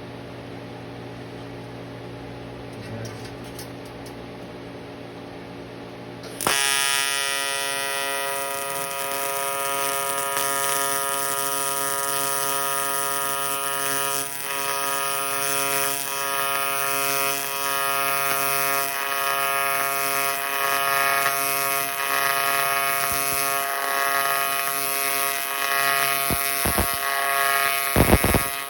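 AC TIG welding arc on aluminum: after about six seconds of low machine hum the arc strikes suddenly and buzzes steadily for the rest, dipping briefly now and then, with a few sharp crackles near the end.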